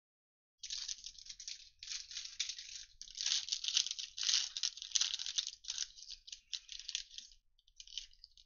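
Foil wrapper of a Panini Illusions football card pack crinkling and rustling in uneven bursts as it is torn open by hand and the cards are slid out.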